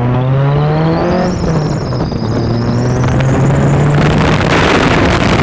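Car engine accelerating hard, its pitch climbing over the first second and then holding steady as it keeps pulling. A loud rush of wind on the microphone builds up from about four seconds in as the speed rises.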